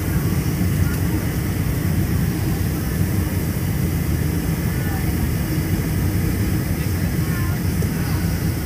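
Steady cabin noise inside a Boeing 747 airliner on its descent: a constant low rumble of engines and rushing air.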